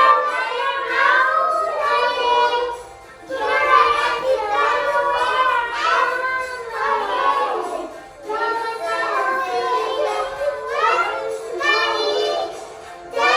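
Young child singing a song in phrases, with short breaks about three and eight seconds in.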